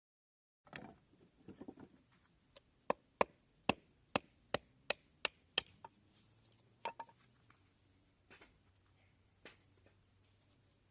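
A run of sharp wooden knocks, about two a second for a few seconds, then a few scattered knocks.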